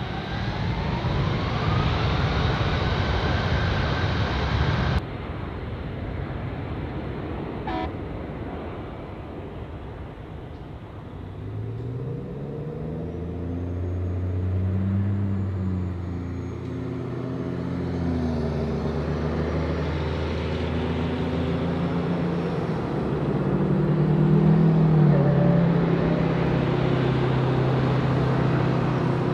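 Boeing C-17 Globemaster III's four turbofan engines at takeoff power. A rising whine over the first few seconds breaks off abruptly about five seconds in. Then comes a deep engine drone whose pitched tones rise and shift as the jet lifts off and climbs away.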